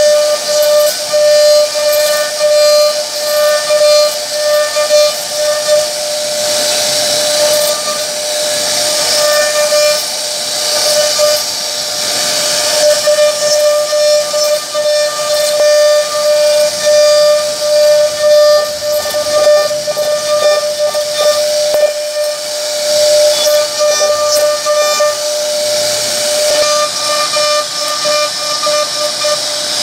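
CNC router spindle whining at a steady pitch while its bit carves relief patterns into a wooden door panel. A hiss of cutting wood swells and fades as the bit moves through the cuts.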